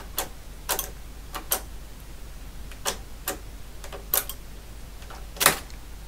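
Metal-on-metal clicks from the MADAS 9E mechanical calculator's gearing and stepped drums as it is cycled by hand: about eight sharp, irregularly spaced clicks, the loudest one near the end.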